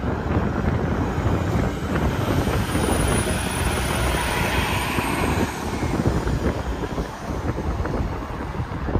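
A vehicle passing on the interstate, its tyre and engine noise swelling over a few seconds and then fading away, with a faint high whine that rises and falls as it goes by. Wind buffets the microphone throughout.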